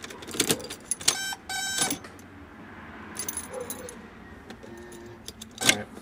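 Car keys jangling on their ring as the ignition key is turned to run, followed by a faint steady hum of the car's electric fuel pumps running. A sharp click comes near the end.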